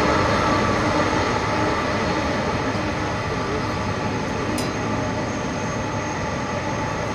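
Boeing 747 Dreamlifter's four turbofan jet engines at taxi power: a steady rushing hum with a thin high whine, fading slightly as the jet moves away.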